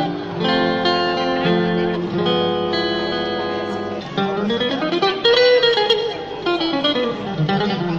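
Electric and acoustic guitars playing an instrumental passage together: held chords, then about halfway through a melody line that slides up and back down.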